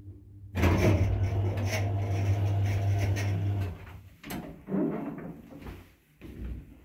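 Lift's powered sliding cabin doors opening with a steady motor hum and rattle on arrival at a floor, then a few clunks as the hinged metal landing door is pushed open by hand.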